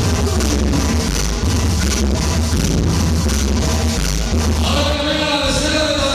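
Loud cumbia music over a dance-hall sound system, with a heavy steady bass beat; a held melody line comes in near the end.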